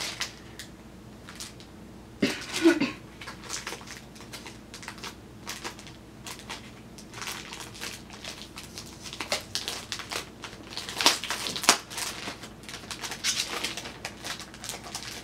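Rustling and crinkling of album packaging and paper being handled, with many small clicks and taps; a louder crinkle about two seconds in and another near eleven seconds.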